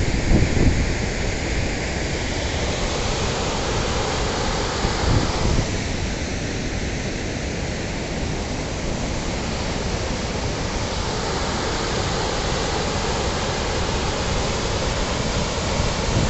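Fast floodwater of a river in spate rushing and churning over a weir, a steady, loud rushing noise, with a few low rumbling bumps near the start and about five seconds in.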